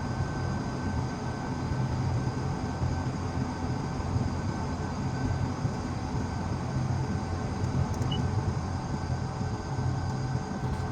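Vehicle engine running steadily at a constant speed: an even, low drone with a faint steady whine above it.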